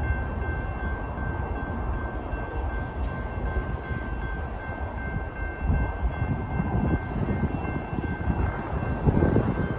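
Low rumble of a departing freight train's rail cars, with a grade-crossing bell ringing steadily over it. Gusts of wind hit the microphone near the end.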